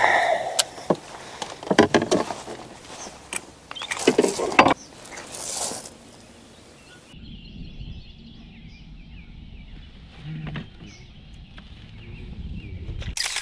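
Splashing, knocks and rattles as a bass is netted and handled on a plastic measuring board aboard a kayak. About seven seconds in the sound cuts to a steady low rumble with a few faint knocks, ending in one sharp knock.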